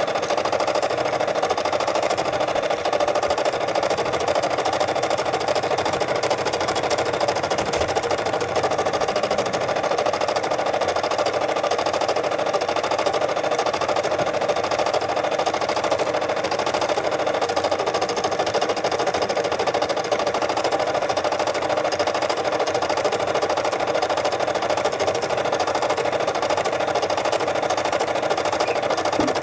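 Brother SE600 embroidery machine stitching a design: a fast, even needle rattle that runs steadily without a pause.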